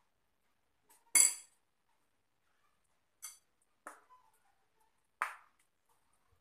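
A metal spoon clinking against a ceramic bowl and an aluminium idli stand as batter is scooped out and dropped into the moulds: four separate clinks, the first, about a second in, the loudest with a brief high ring.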